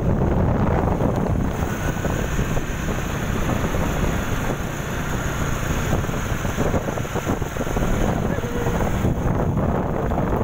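Wind buffeting a phone's microphone on a moving motorcycle: a steady, rumbling rush of noise heaviest in the low end, with the ride's road and motor noise beneath it.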